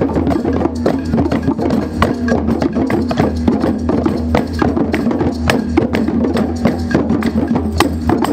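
A group of djembe drums played by hand together in a fast, steady rhythm of sharp strikes.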